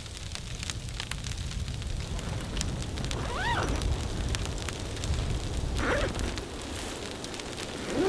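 Sleet ticking and pattering on the tent fabric, a dense crackle of tiny hits over a low rumble of wind. A few short rising-and-falling whistly tones break through it.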